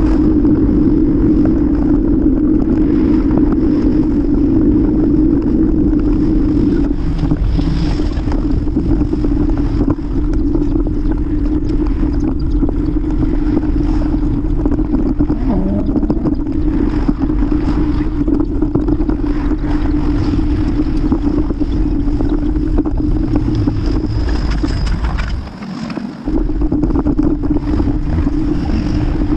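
Strong wind rumbling on the microphone of a camera on a moving bicycle, with a steady low hum under it. The hum and rumble drop away briefly about four seconds before the end, then return.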